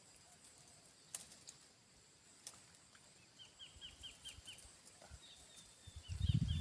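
Faint clicks over quiet outdoor background, then a bird chirping: a quick run of short, high chirps at about seven a second, followed by a thinner high call. Low rumbling thumps come in near the end.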